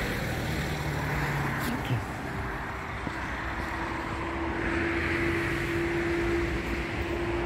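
Street traffic noise: the hiss of passing cars fades and then swells again, with a faint steady hum from about halfway through.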